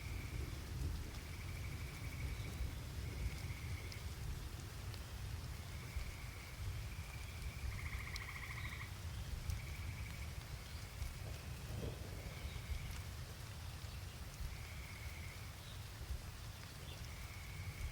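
Steady rain with a low rumble beneath it. A small animal's short, trilled call repeats every second or two, one louder call about halfway through.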